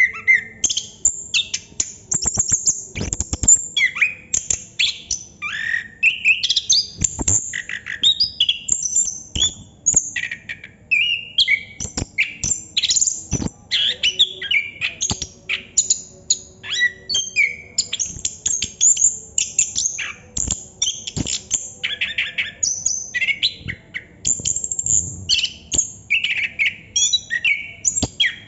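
Chestnut-capped thrush (anis kembang) singing continuously in a long, non-stop run of quick, varied whistled phrases with hardly a pause, with a few sharp clicks scattered through the song.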